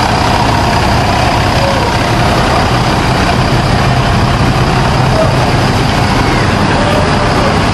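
Diesel engine of a Mercedes-Benz coach running steadily with a low, even hum as the bus pulls slowly away.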